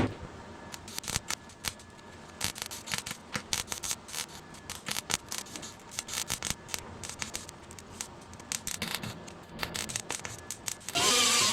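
Hand metal snips cutting sheet steel for a patch panel: a run of irregular, closely spaced snips and clicks.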